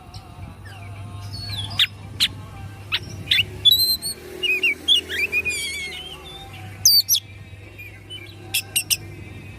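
Oriental magpie-robin (kacer) singing a rapid, varied run of sharp whistles, quick rising and falling notes and clicks, in the excited, tail-fanning state bird keepers call kongslet.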